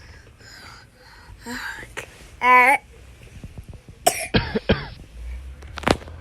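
A young child with a cough and cold coughing: a short run of harsh coughs in the second half, the last one sharp. There is a brief high-pitched voice sound about two and a half seconds in.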